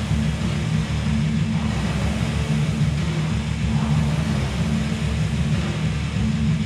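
Steady low rumble of a running vehicle, even throughout with no revving or change.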